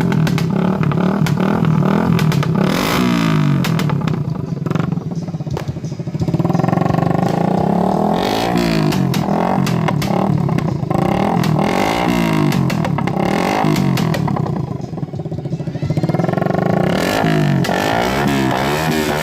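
Suzuki Raider 150 carburetted motorcycle's single-cylinder four-stroke engine, running steadily for the first few seconds, then revved again and again, its pitch rising and falling with each throttle blip.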